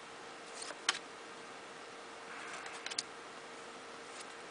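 Panini NBA Hoops cardboard trading cards being handled and flipped through one at a time. There are a few light clicks and a brief soft slide of card against card, over a faint steady hum.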